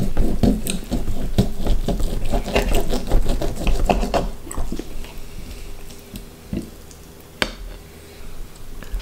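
Knife and fork scraping and clinking on a china plate as a pan-cooked pheasant fillet is cut, in a busy run of short strokes for the first four seconds or so. It then goes quieter, with one sharp click about seven seconds in.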